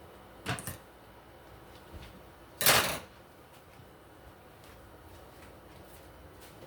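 Household handling noises: two quick knocks about half a second in, then a louder clatter lasting under half a second near the middle.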